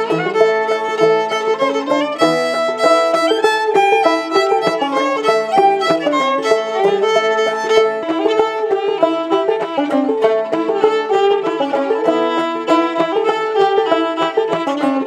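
A fiddle and a clawhammer banjo playing an old-time tune together, without a break.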